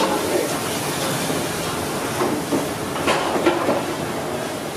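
Steady hissing background noise of a busy street-food kitchen, with faint voices and a couple of light clicks of plates being handled.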